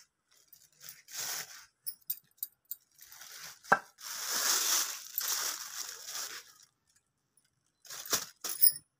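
Hands dusting flour across a rolling board: several bursts of dry rustling and scraping, the longest about four seconds in and lasting a couple of seconds, with a couple of sharp taps.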